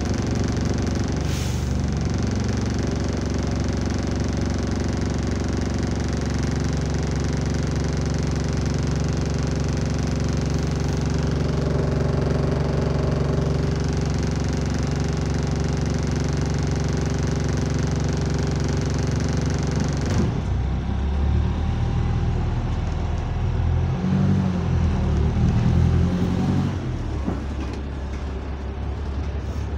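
A bus engine heard from inside the passenger cabin, idling steadily with a loud rattle; the owner puts the rattly idle down to a slightly blown exhaust. About two-thirds of the way in, the sound changes and the engine revs up and down as the bus pulls away.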